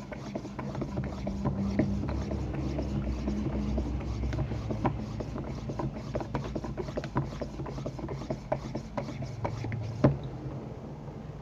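Air pump inflating a basketball through its needle valve, running slowly with a steady low hum and a continuous scratchy rattle of small clicks. One sharp click about ten seconds in.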